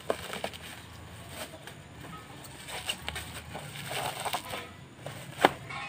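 Packaging being handled and pulled at while a boxed kitchen knife set is opened: scattered rustling and small clicks, with one sharp click about five and a half seconds in.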